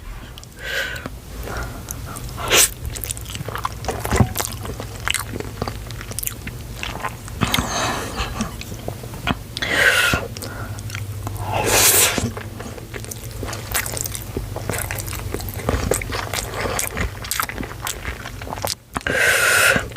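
Close-miked chewing of cheesy Buldak ramen noodles, with many short wet mouth clicks. There are a few louder, longer mouth sounds around ten and twelve seconds in.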